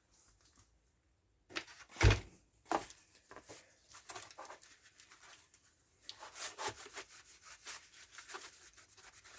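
A sharp knock about two seconds in, then repeated short rubbing and scraping strokes of cleaning on a Stihl MS170 chainsaw.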